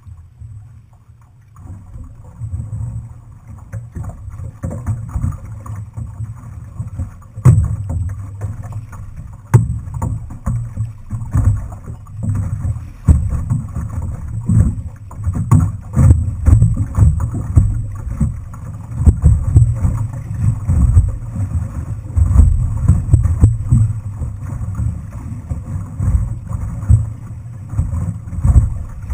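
Outrigger canoe being paddled: water sloshing and paddle strokes pulsing about once a second, under a heavy low wind rumble on the microphone, with a couple of sharp knocks a few seconds in.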